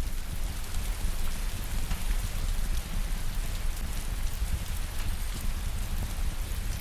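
Fireplace fire crackling steadily, a dense run of small crackles over a low rumble.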